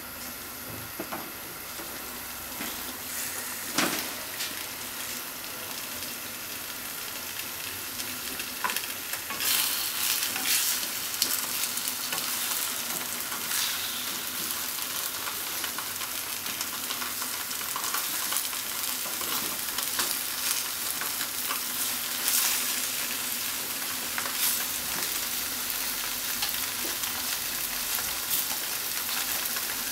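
Potato-starch-coated tofu cubes sizzling in a frying pan, with short clicks and scrapes of chopsticks turning the pieces. The sizzle grows louder about nine seconds in.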